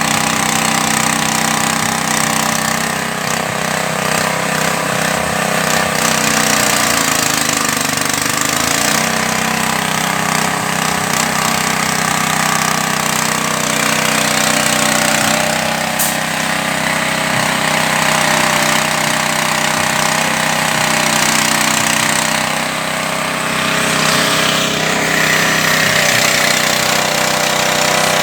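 Floating fish-feed pellet extruder machine running steadily and loudly, its pitch dipping briefly about eight seconds in.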